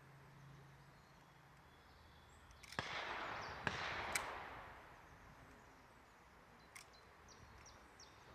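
Handgun shots fired at a range target: three sharp cracks in under two seconds, about three seconds in, with a rolling echo after them, then a fainter fourth crack near the end.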